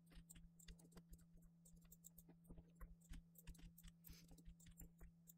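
Near silence: faint, scattered clicks of a computer mouse and keyboard over a low steady hum.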